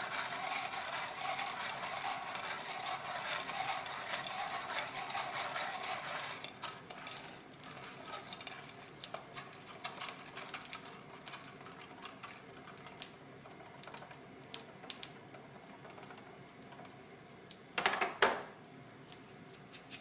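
Coffee beans rattling in a hand-shaken aluminium Irijouzu roaster, with the popping of the second crack, dense for about six seconds. Then the shaking stops and scattered sharp pops carry on. Near the end comes a short, louder rattle.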